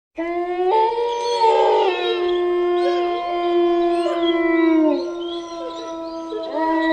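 Several canines howling together in long, overlapping howls at different pitches. It starts abruptly out of silence, a few howls slide down in pitch midway, and a fresh howl rises in near the end.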